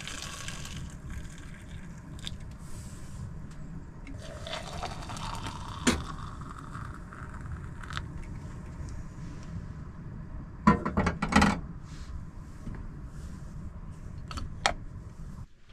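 Hot water poured from a stovetop kettle into a mug and then into a glass cafetière, the pour rising in pitch as the vessel fills. A few loud sharp clatters about eleven seconds in, and a click near the end as the cafetière plunger is pressed down.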